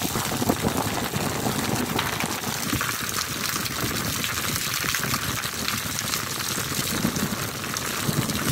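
Heavy rain pouring down, a steady rushing hiss of water splashing onto wet concrete.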